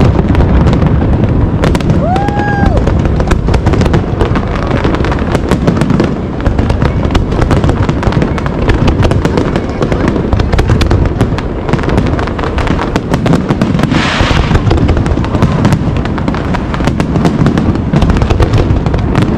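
Aerial fireworks display: a dense, continuous barrage of bangs and crackling bursts. A short whistle sounds about two seconds in, and a brief hiss about fourteen seconds in.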